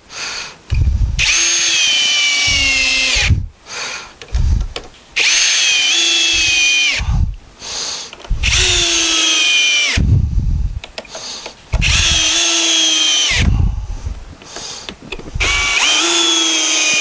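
Cordless drill driving wood screws into western red cedar boards: about five runs of motor whine, each about two seconds, dropping in pitch as each screw draws tight, with short pauses and low knocks between screws.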